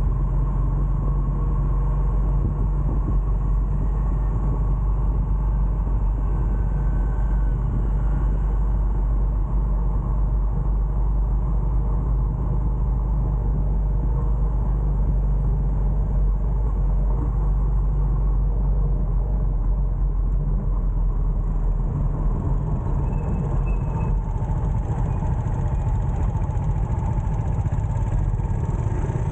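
Steady engine and road noise of a motorbike riding through light city traffic, a continuous low rumble with other motorbikes and cars around.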